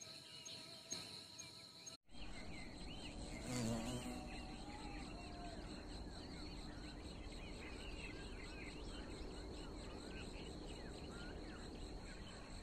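Outdoor dawn ambience: insects holding a steady high whine, with many short chirps of birds or insects over it. The sound cuts out for an instant about two seconds in, then resumes. A brief louder knock or rustle comes a second or two later.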